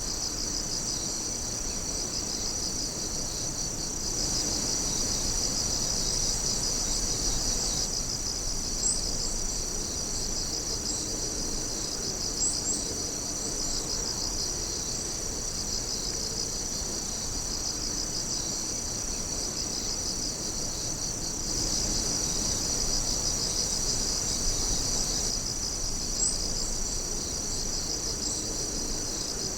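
A dense chorus of night insects trilling steadily and high-pitched, many callers overlapping in a fast pulsing texture. A few brief, sharper chirps stand out here and there.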